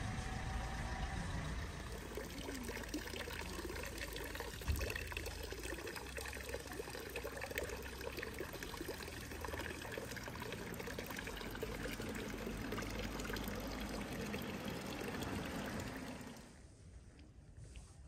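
Steady rush of running, pouring water that drops away sharply about sixteen seconds in.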